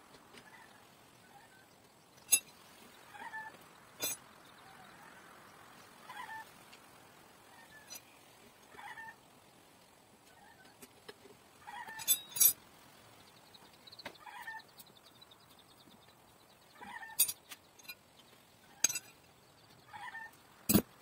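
Sharp metal clicks and clinks from hand tools and parts on a BMX bike being assembled, about six of them and the loudest sounds here. Behind them, a short animal call repeats every two or three seconds.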